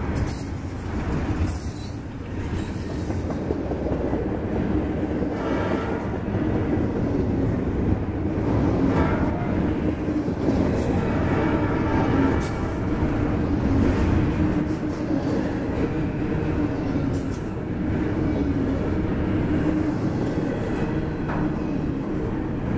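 Double-stack intermodal well cars rolling past close by: a steady noise of steel wheels on rail, with scattered clicks and clanks from the wheels and couplings.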